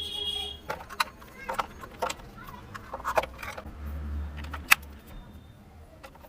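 Scattered clicks and knocks of a plastic toy RC car being handled, with a low hum underneath.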